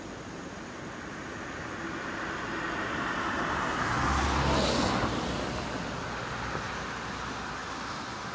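A motor vehicle passes by, growing louder to its peak about four to five seconds in and then fading away, over a steady hiss of rushing creek water.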